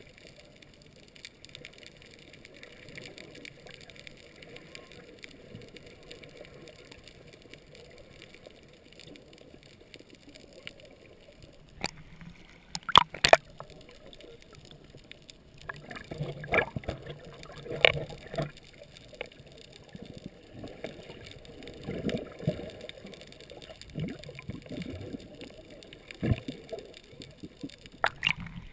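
Muffled underwater sound picked up by a submerged camera: a low steady wash of water. From about twelve seconds in come a few sharp clicks and knocks and a run of gurgling pulses.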